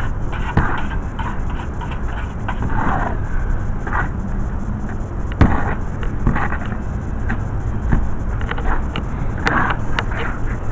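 A hoe dragged and chopped through wet mortar in a wheelbarrow, making repeated rough scrapes at an uneven pace of roughly one or two a second, with a few sharp knocks, over a steady low rumble.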